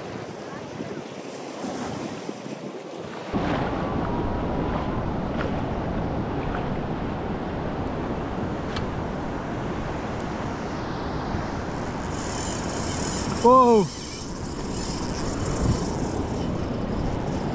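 Wind on the microphone over waves washing through shallow water, a steady noise that gets louder about three seconds in.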